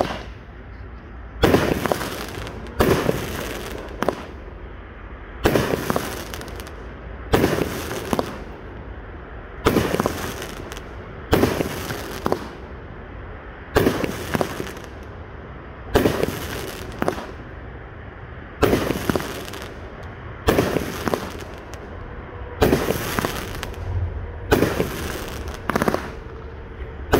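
500-gram consumer firework cake firing a string of aerial shots: sharp bangs one every second or two, each trailing off before the next.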